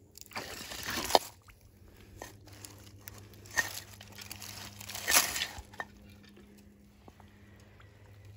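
Crunching and rustling of someone moving over a creek bed's wet gravel, stones and leaves, in two bursts about a second long, one near the start and one about five seconds in, with a sharp click between them.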